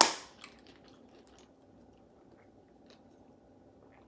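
A loud crunching bite into a crispy fried chicken wing, followed by about a second of smaller chewing crunches.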